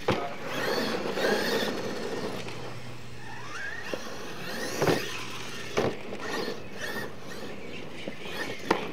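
RC monster truck's motor whining, rising and falling in pitch as the throttle is worked, with a few sharp knocks.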